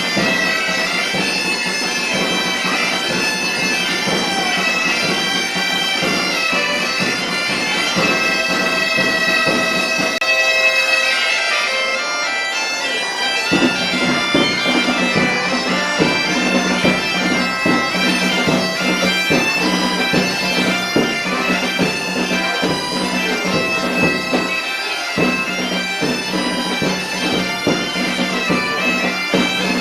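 Galician bagpipe (gaita) playing a tune over its steady low drone. About twelve seconds in the drone and low part drop out for a couple of seconds, then return with a drum beating along.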